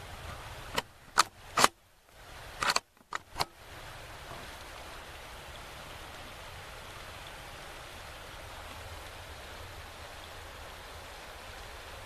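A quick run of six sharp clicks and knocks in the first few seconds, from gear being handled, then a steady faint hiss of woodland background.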